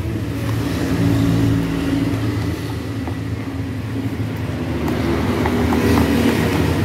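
A motor engine running steadily, its low pitched note holding level throughout. Faint short clicks of hands kneading wet bait mash in a plastic bowl come through in the second half.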